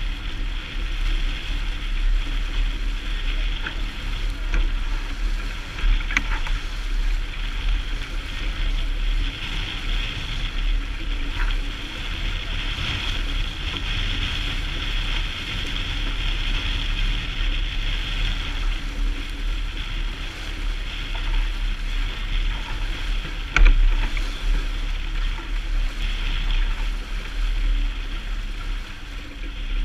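Wind buffeting the microphone with a steady low rumble, over the rush and hiss of water along the hull of a small sailing yacht under way. A single sharp knock stands out a little past two thirds of the way through.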